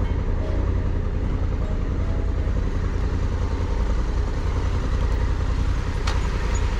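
Honda Africa Twin's parallel-twin engine running steadily as the motorcycle rides along, with a strong low rumble. There is a single short click about six seconds in.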